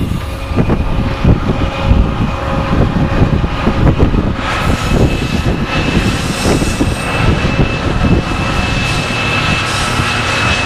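BNSF GE ES44C4 and ES44DC diesel-electric locomotives leading a double-stack intermodal train as they approach and pass. The engines run with a deep rumble and a steady high whine that grows louder from about four seconds in as the units draw near.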